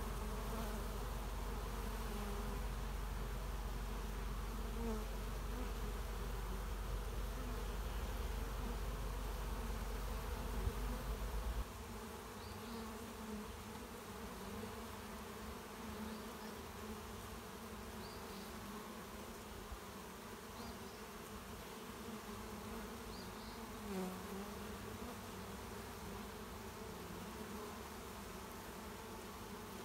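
A large mass of honeybees buzzing steadily as they pour out of a nest inside a car door and cluster on a hive box, driven out by Bee Quick repellent. A low rumble runs underneath and cuts off suddenly about a third of the way through.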